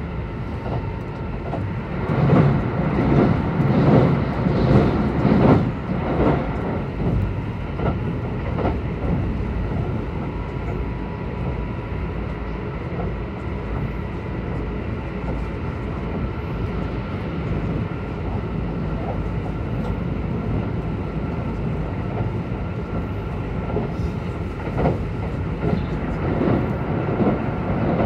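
Kintetsu 22000 series express train running at speed, heard from inside the passenger car: a steady rumble of wheels and motors. It grows louder and more clattery about two to six seconds in and again near the end.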